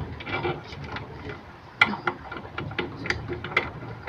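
Metal tool and machine parts being handled by hand, clinking and clicking in an irregular run of sharp knocks. The loudest knock comes a little under two seconds in.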